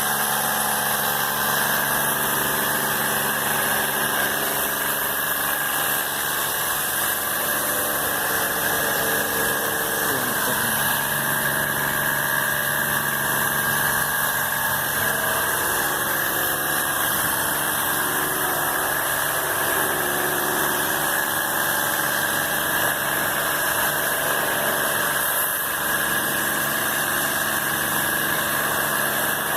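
A motor running steadily with a constant hiss, unchanging in level throughout.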